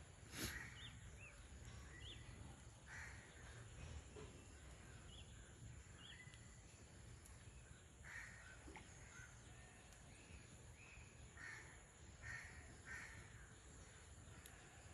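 Faint crows cawing, a short call now and then, with a few thin bird chirps in between.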